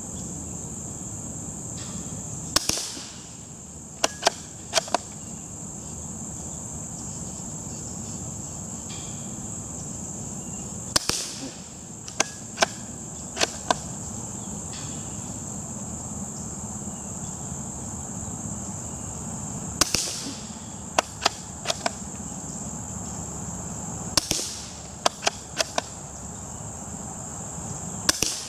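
Suppressed Ruger American bolt-action .22 rifle firing Aguila Super Colibri low-velocity rounds: five sharp pops spaced several seconds apart, each followed by two or three quick clicks of the bolt being worked for the next round. Insects chirp steadily throughout.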